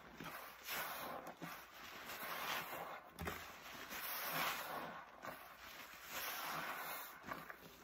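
A soapy dry-paste sponge squeezed and wrung over and over in rubber-gloved hands: wet squishing of foam and water in several irregular swells.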